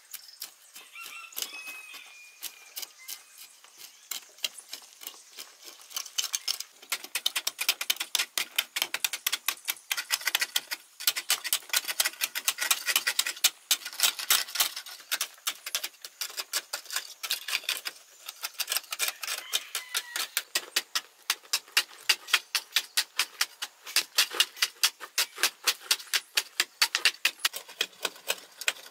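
Hand hoes chopping and scraping into a hard, dry clay wall: many sharp strikes from two diggers working at once. The strikes are sparse at first and come thick and overlapping from about seven seconds in.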